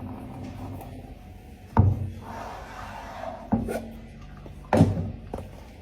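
Three dull thumps or knocks, about a second and a half apart, with a scraping, rubbing noise after the first.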